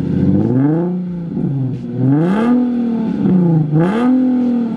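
Nissan 370Z's 3.7-litre V6 revved at a standstill in short throttle blips, the pitch rising and falling about three times. It sounds through a newly fitted aftermarket valved exhaust with Y-pipe.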